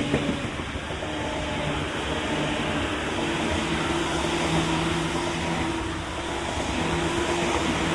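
Stainless-steel electric commuter train running past, a steady, loud rush of wheels on rail mixed with a steady hum from its traction motors.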